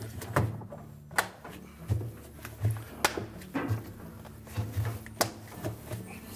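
Washer tub cover being pressed down onto the outer tub rim, its tabs snapping into place: a series of sharp clicks and knocks, about one a second.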